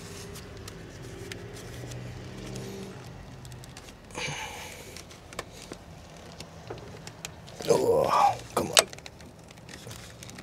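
Hands working at the quick-connect fitting of the fuel line on a Honda Civic's fuel rail to unplug it: small clicks and rattles of the fitting and hoses, with a napkin rustling. A louder scuffle of handling comes about eight seconds in, and a low hum runs under the first few seconds.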